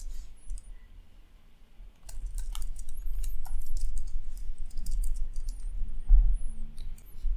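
Typing on a computer keyboard: a quick run of keystrokes starting about two seconds in, with a louder low thump about six seconds in.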